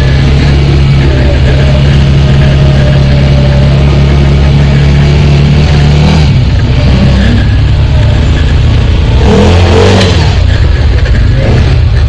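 ATV engine running under way, steady at first, with a shift in engine pitch about six seconds in and a brief louder rush of noise around nine seconds in.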